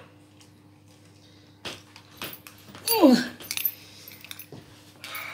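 A few clicks and rattles of handling, then about three seconds in a dog gives one short whine that falls sharply in pitch. A low steady electrical hum runs underneath.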